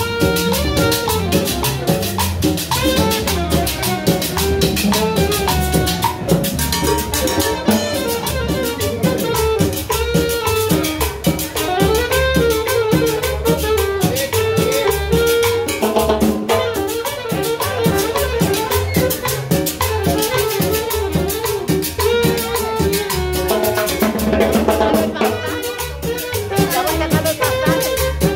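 Live Latin dance music from a small band, with congas and a double bass keeping a steady beat under sustained melody notes.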